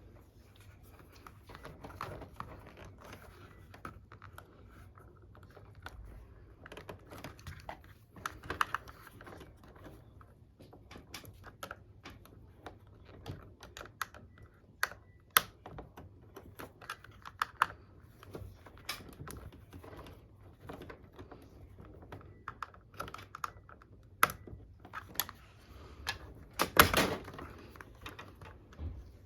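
Irregular plastic clicks, snaps and light knocks from taking apart a Hitachi wall-mounted air conditioner's indoor unit by hand, with a louder cluster of knocks near the end.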